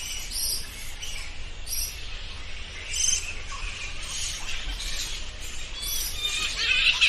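Bats squeaking: many short, high-pitched chirps in quick overlapping runs, thickening into a denser chatter near the end.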